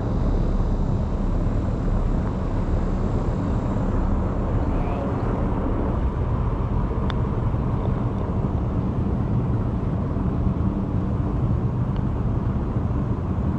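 A putter tapping a golf ball once, a light click about seven seconds in, over a steady low rumble of outdoor noise.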